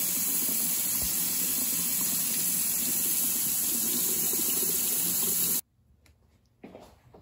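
Kitchen tap running full onto a rubber gas mask in a stainless steel sink, the water splashing as grated cheese is rinsed out of it. The water cuts off suddenly about five and a half seconds in, leaving a couple of faint short knocks near the end.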